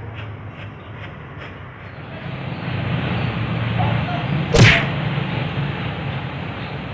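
Workshop background with a low steady hum, a few faint ticks in the first second or so, and one sharp, loud click about four and a half seconds in, from hand-tool work on the Ford Fiesta's engine.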